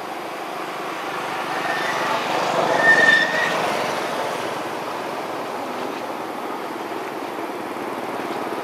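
A vehicle passing at a distance: a steady rumble that swells to a peak about three seconds in, with a brief high squeal at the loudest point, then fades back.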